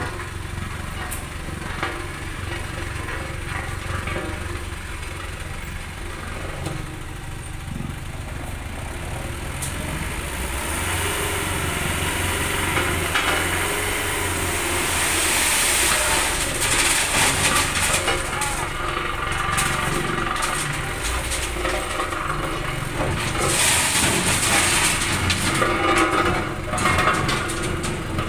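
Heavily loaded dump truck's diesel engine running with a steady low rumble, joined by stretches of loud hissing in the middle and near the end.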